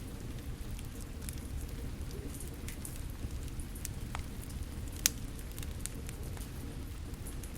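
A fire crackling, with scattered sharp pops over the steady hiss of rain; one pop about five seconds in is much louder than the rest.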